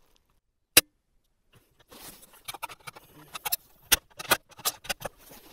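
A single sharp crack from a 7mm bolt-action hunting rifle, followed about two seconds later by a quick run of metallic clicks and clacks as the bolt is worked.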